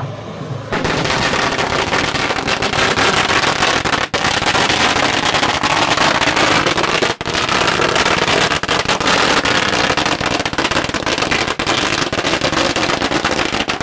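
A long string of firecrackers going off in rapid, continuous bangs. It starts about a second in and cuts off suddenly near the end.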